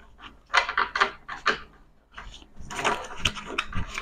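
Playing cards being handled and shuffled by hand: two spells of crisp rustling and flicking, the first about half a second in, the second from about two and a half seconds on.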